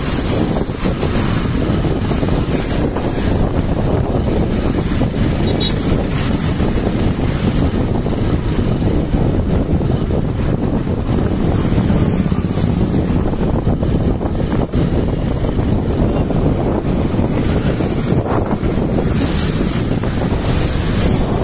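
Loud, steady wind rumble on the microphone of a phone carried along a road on a moving vehicle, with the engines of passing motorbikes and cars mixed in.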